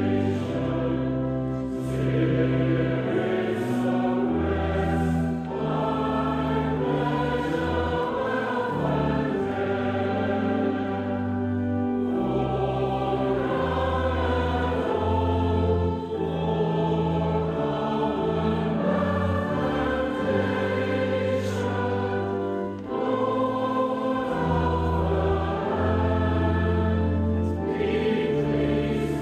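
Choir and congregation singing a hymn in a church, over long held low accompanying notes, with brief dips between lines.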